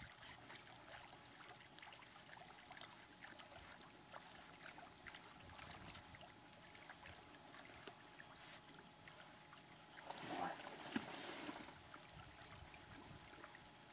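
Near silence with faint trickling and lapping water and a few small ticks; about ten seconds in, a brief louder rush of noise.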